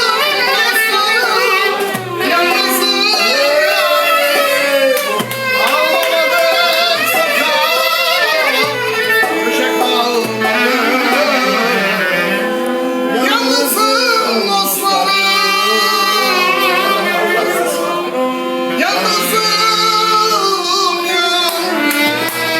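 A solo singer performing an ornamented melody with wavering runs over steady instrumental accompaniment.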